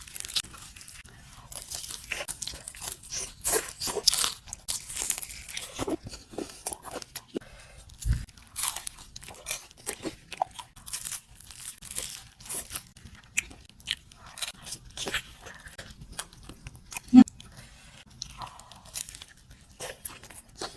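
Close-up crunching and chewing of crispy fried chicken, irregular crackly bites one after another. There is a dull low thump about 8 seconds in and a sharp knock near 17 seconds.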